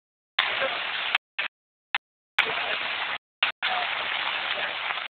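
Steady rushing hiss of water during a flood, with the sound cutting out abruptly to dead silence several times, about a second in, a little after three seconds, and at the end.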